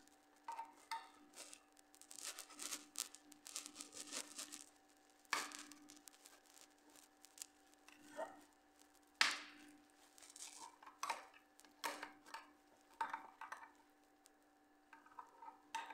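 Metal spatula scraping and clinking against a glass baking dish as slices of a baked bread bake are cut and lifted: a run of small scrapes and clicks with sharper clinks about 5 and 9 seconds in. A faint steady hum runs underneath.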